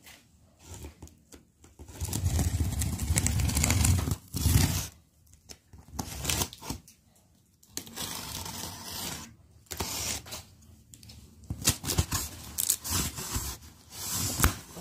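Cardboard box being handled and its packing tape scraped, cut and torn open, in irregular bursts of scratchy tearing. The loudest and heaviest burst runs from about two seconds in to nearly five.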